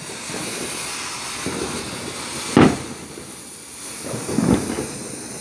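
Lit consumer firework going off: a steady spraying hiss, with one sharp bang about two and a half seconds in and a softer burst of pops a couple of seconds later.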